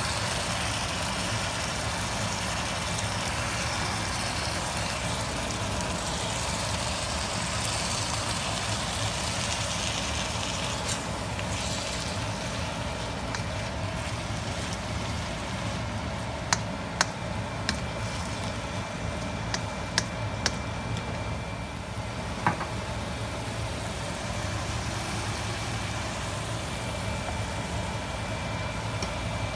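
Prawns and noodles sizzling in a hot wok, a steady hiss that is strongest in the first ten seconds or so, over a steady low hum. A few sharp clicks of a utensil against the wok come in the second half.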